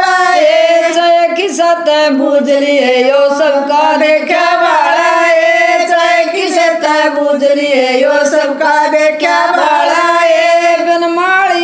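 Three women singing a Haryanvi jakdi folk song together in unison, with no instruments; the melody glides and bends continuously through long held lines.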